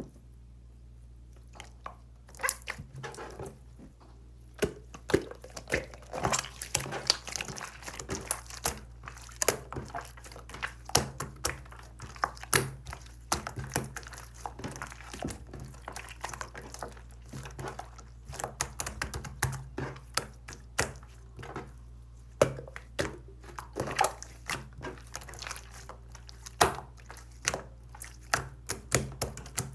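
Slime being squeezed and poked by hand: an irregular, fast run of small sticky clicks and pops, beginning about two seconds in, over a low steady hum.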